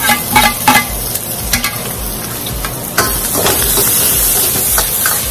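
Sliced peppers and onion sizzling in hot oil in a wok, with a metal ladle clicking and scraping against the wok as they are stir-fried. The sizzle turns louder and steadier about three seconds in.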